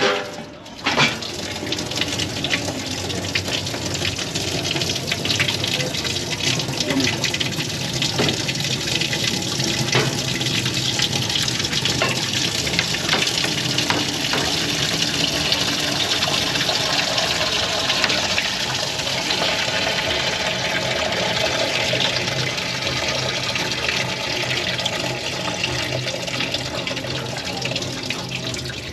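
A steady rush of water runs throughout, with a sharp knock about a second in.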